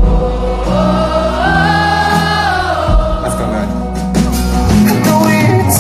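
Live band music (drums, keyboards, electric guitar) with singing, the crowd's voices joining in; a long sung note is held through the first half.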